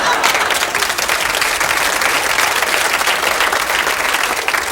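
Studio audience applauding: dense, steady clapping that eases off slightly near the end.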